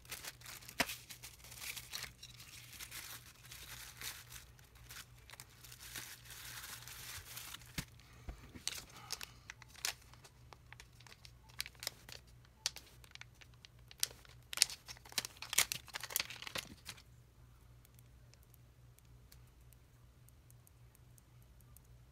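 Plastic packaging and a bubble-wrap mailer being crinkled and torn open by hand, with many sharp crackles. The crinkling stops about three-quarters of the way through, leaving a faint low hum.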